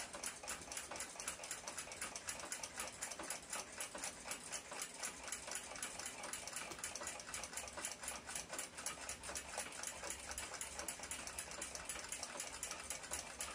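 Faint, steady mechanical ticking, about four to five even ticks a second, unbroken throughout.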